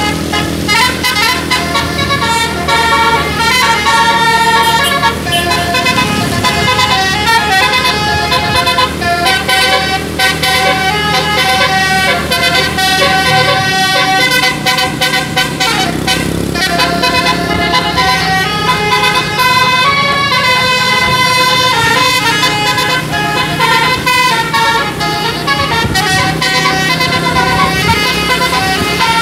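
Bus 'telolet' musical air horn playing a long run of classic tunes, held notes stepping from pitch to pitch like a melody, over a low engine drone.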